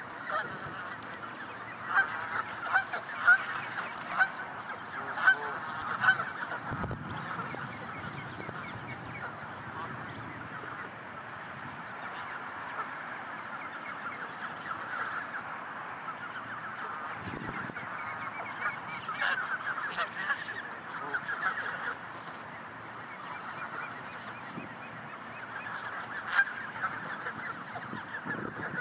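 A brood of Muscovy ducklings peeping continuously, many short calls overlapping, with louder bursts of calls a few seconds in, around two-thirds of the way through and again near the end.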